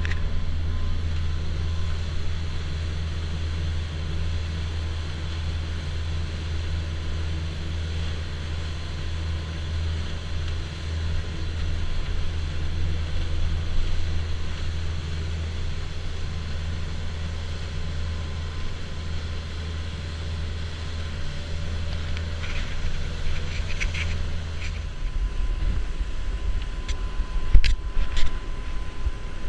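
Fishing boat's engine running steadily at speed, a constant low drone over the rush of wake and wind. Near the end the engine note drops lower, and a couple of sharp knocks are the loudest sounds.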